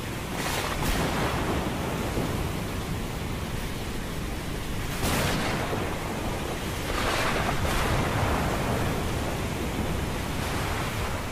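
Ocean surf: a steady wash of waves, with louder swells breaking a few times.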